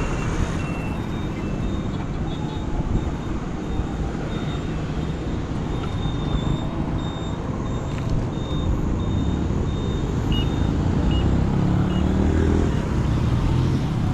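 Road traffic: a steady rumble of vehicle engines and tyres, with rows of short high electronic beeps repeating through much of it. Near the end an engine's pitch rises as a vehicle pulls away.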